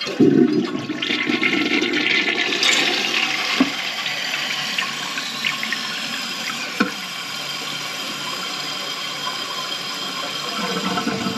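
Toilet being flushed: the water rushes in suddenly and loudest at first, then keeps rushing and draining steadily, with a couple of short knocks. A weak, noisy flush that the handyman takes for a clog.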